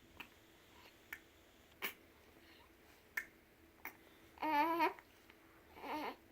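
A baby hiccupping: about five short, sharp hiccups at irregular intervals, then two brief babbling vocal sounds near the end.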